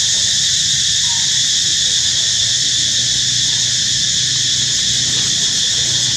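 A loud, steady, high-pitched insect chorus drones without a break, with a faint short chirp about a second in.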